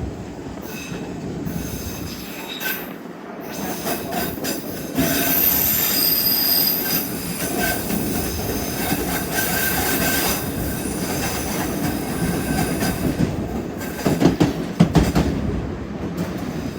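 White Pass railway narrow-gauge train rolling along the track, its wheels squealing in a high steady whine for much of the middle, with a few sharp knocks near the end.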